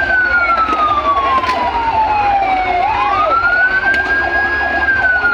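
A siren wailing in a slow cycle: a quick rise to a high pitch, a short hold, then a long falling glide, repeating about every three seconds.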